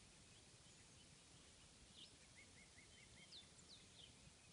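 Very faint distant birdsong over quiet background hum: scattered short, high chirps from small birds, with a quick run of five short notes about midway.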